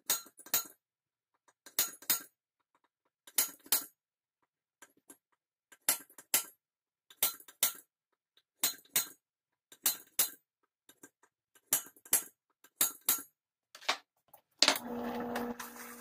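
Spring-loaded center punch snapping against sheet steel: about ten sharp metallic double clicks, one roughly every second and a half, as hole positions are marked. Near the end a bench drill press motor starts and runs with a steady hum.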